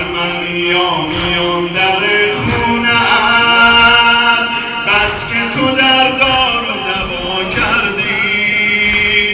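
A male eulogist chanting a Muharram noha through a microphone and loudspeakers, holding long notes, while mourners beat their chests with flat-hand slaps.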